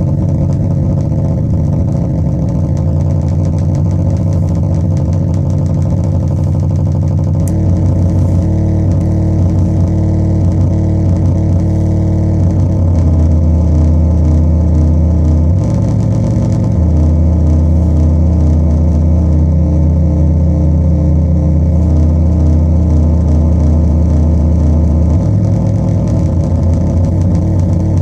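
Metsään Dirty Drone anarchy synth droning with a loud, low, engine-like buzz from its three interacting triangle-wave oscillators, played through speakers. Its pitch and texture jump in steps several times.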